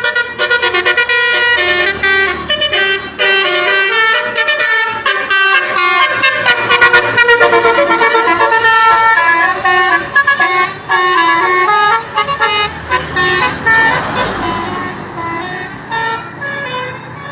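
Basuri musical horn on a passing vehicle playing a fast, continuous melody of changing notes, loud throughout and fading near the end.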